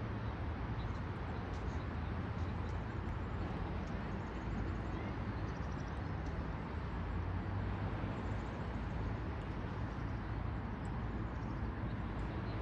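Steady outdoor ambience: a constant low rumble under an even hiss, with a few faint ticks.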